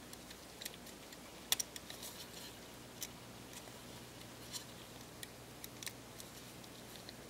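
Faint, scattered small clicks and taps of a plastic frame and the camera's parts being handled and pressed into place over a compact camera's circuit board, the sharpest click about one and a half seconds in.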